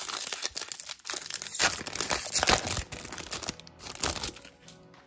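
Trading-card pack wrapper being torn open and crinkled by hand, a rapid run of crackling and tearing that dies down after about three and a half seconds.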